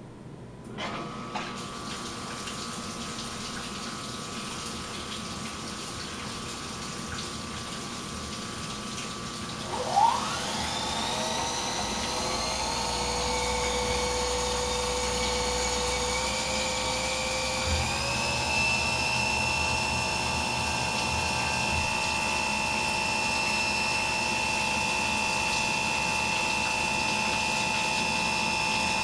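Mikini 1610L CNC mill with flood coolant running from about a second in. About ten seconds in, the spindle spins up with a rising whine. A long end mill then cuts 6061-T6 aluminium with a steady high-pitched whine over the coolant, its pitch stepping up slightly near the eighteen-second mark.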